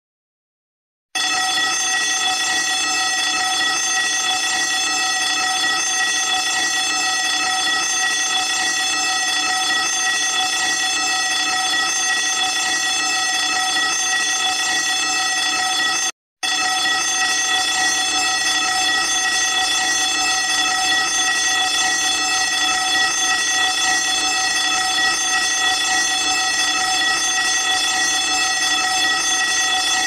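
Electric fire alarm bell ringing continuously, a bright metallic ring of several steady tones. It starts about a second in, cuts out for a moment a little past halfway, then rings on.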